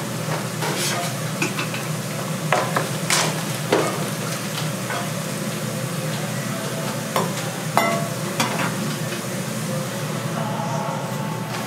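Cooking sounds at a Korean street-food stall: a steady hiss of food cooking, broken by scattered short clinks and knocks of utensils against pots and dishes.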